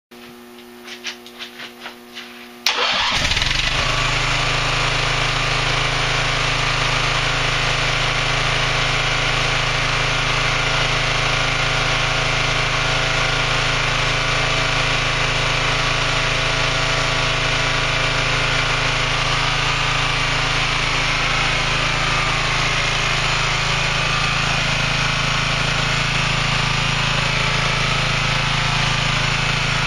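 Small riding-mower engine on a test stand starting up: a few short pulses, then it catches suddenly about three seconds in and runs steadily.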